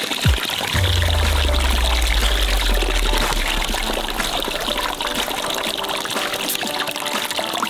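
Carbonated soda gushing and fizzing in a steady hiss, with a deep bass tone from music sliding down about a second in.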